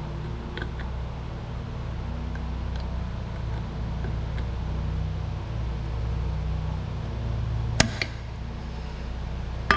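Needle-nose pliers working the metal tabs of a tail light bulb socket against its metal housing: a few faint ticks, then two sharp metallic clicks near the end, over a steady low hum.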